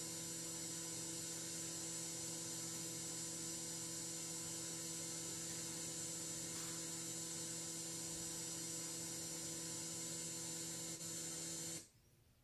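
Steady hiss with a faint electrical hum at several pitches, the empty audio track of a silent film with no soundtrack. It cuts off abruptly near the end.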